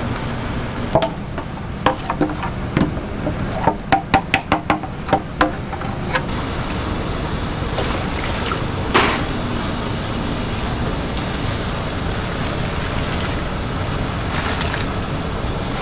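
Stainless-steel ladle knocking and scraping against a metal pot as thick loach paste is scraped out: a quick run of about a dozen clinks over a few seconds, then one louder knock about nine seconds in. All of it is heard over a steady rushing noise.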